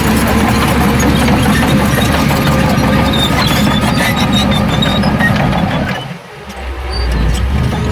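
Heavy diesel earthmoving machinery running steadily under load, with short high squeaks over the engine; the sound drops away briefly about six seconds in, then comes back.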